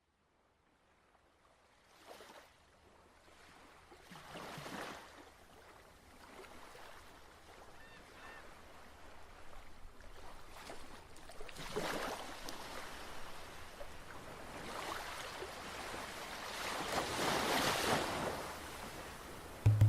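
Sea waves surging and washing in, each swell rising and falling away, growing louder toward the end. A few faint high chirps about eight seconds in.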